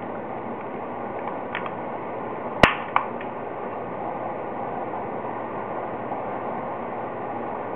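Steady hiss with a few light ticks, then two sharp clicks about a third of a second apart a little under three seconds in, from handling during an unboxing.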